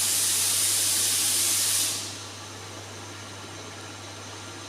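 A loud hiss of compressed air that cuts off about two seconds in, over a steady low machine hum.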